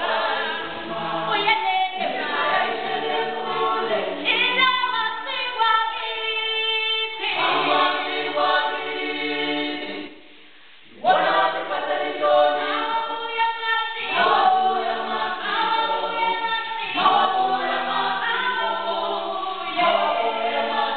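A group of Zulu performers singing in chorus, several voices in harmony with no instruments, breaking off for about a second halfway through before the song picks up again.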